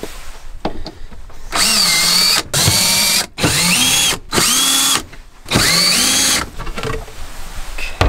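Cordless drill run in about five short bursts, each under a second, backing screws out of a wooden bench panel. The motor's whine rises in pitch at the start of each burst and then holds steady.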